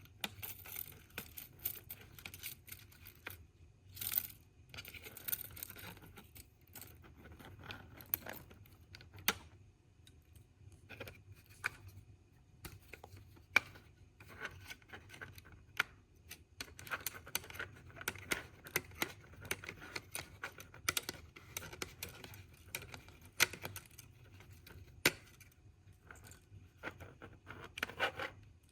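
Irregular small clicks, ticks and scrapes of plastic model-locomotive parts being handled and pried loose.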